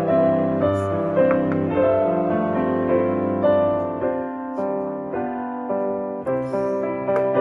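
Background piano music, a slow run of held notes, with a few faint clicks.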